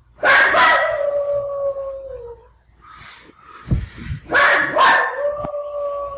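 A dog howling twice, each howl opening with a rough yelp, then settling into a long held note that falls away at the end; the second begins about four seconds in. It is separation howling: the dog's life-long companion has been taken away.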